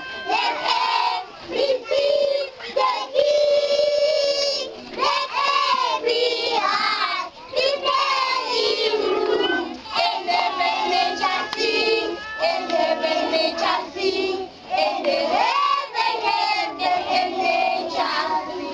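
Group of young children singing together, with one long held note about four seconds in.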